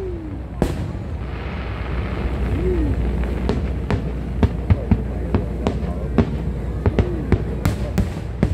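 Aerial fireworks bursting in a series of sharp bangs, a few at first and then several a second from about halfway through, over a steady low rumble.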